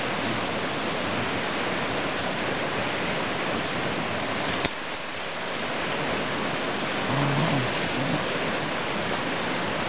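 Steady rushing noise of wind on the microphone, with a sharp knock about halfway through. Short low growls come from the Bernese mountain dogs as they wrestle, about seven seconds in.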